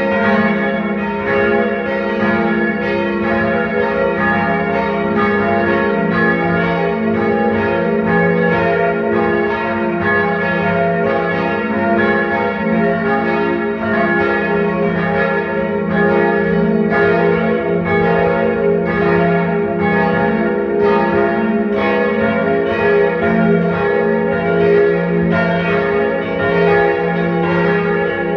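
Church bells pealing, their strikes coming thick and overlapping into one continuous ring with no pause.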